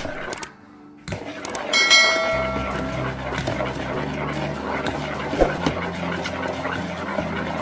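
Wire whisk beating batter in a plastic bowl, with irregular clicks and scrapes. About two seconds in comes a bright bell chime, the sound effect of a subscribe-button animation.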